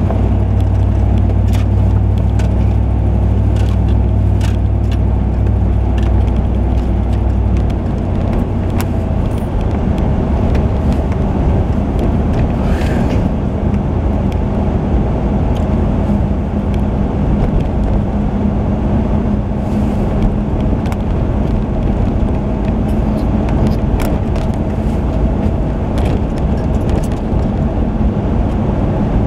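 Car engine and road noise heard from inside the cabin as the car pulls away and drives along a street. A strong low hum fills the first eight seconds or so, then gives way to a steady low rumble, with a few light clicks.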